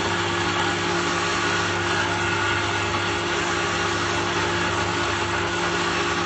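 Multipurpose woodworking planer machine running steadily: an even motor hum with a constant hiss and no change in pitch or level.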